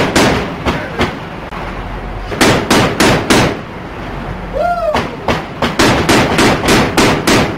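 Mark 38 Mod 2 naval machine gun firing in three bursts of evenly spaced single shots, about three a second, with pauses of about a second between bursts.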